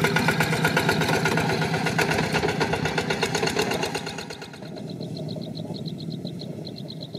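Single-cylinder diesel engine of a two-wheel walking tractor running with a steady, rapid chug as it passes. About four seconds in the engine gives way to a quieter, fast, high-pitched chirping.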